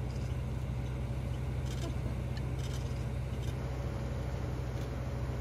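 Transit bus engine idling with a steady low rumble, heard from inside the bus, with a few brief scrapes or rustles near the middle.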